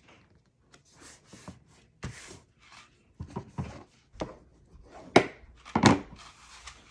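Cardstock pieces being handled, shifted and pressed down on a tabletop: a run of rustles and soft knocks, with two sharper thunks near the end.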